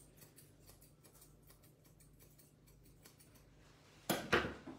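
Steel finishing shears snipping quickly and lightly through a puppy's head hair, a rapid run of small crisp snips. A sudden louder noise breaks in near the end.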